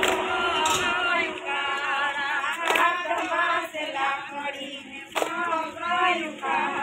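Group of women singing a Gujarati garba song together, with a few sharp hand claps of the garba dance.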